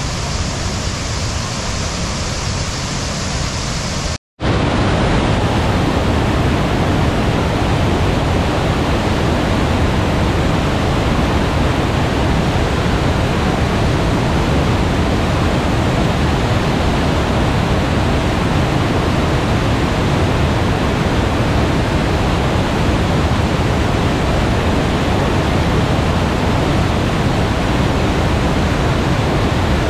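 Steady, loud rush of a waterfall. A brief dropout comes about four seconds in, after which the rushing resumes slightly louder.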